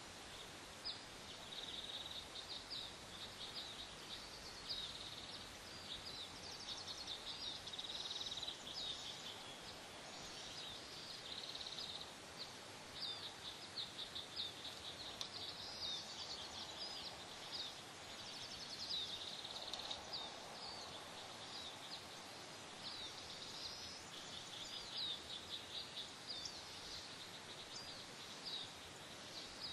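Small birds chirping and trilling almost without pause, short high calls in quick succession, over a steady background hiss.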